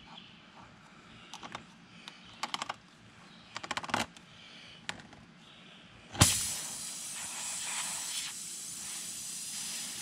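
Tire-repair reamer rasping in and out of a puncture in a tire tread, with scraping clicks as it works through the rubber and cords. About six seconds in, a sharp knock, then a steady hiss of air escaping from the tire through the opened hole.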